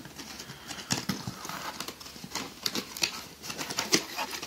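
Cardboard box being opened by hand: irregular knocks, taps and scrapes of the flaps and the packaging inside.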